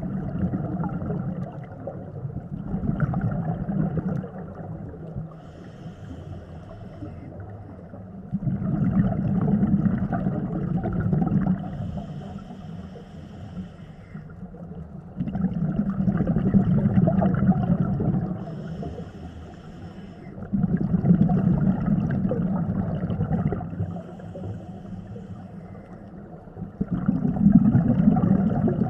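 Scuba regulator breathing underwater: a soft hiss on each inhale and a long bubbling rumble of exhaled air on each exhale, repeating about every five to six seconds.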